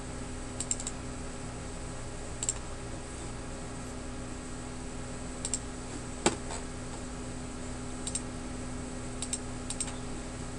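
Computer mouse clicks, mostly in quick pairs, coming every second or two, the sharpest a little past six seconds in, over a steady low hum.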